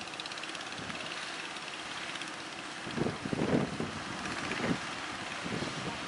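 Surf breaking and wind buffeting the microphone, with the faint running of the fishing boat's engine. A run of louder rumbling gusts comes between about three and five seconds in.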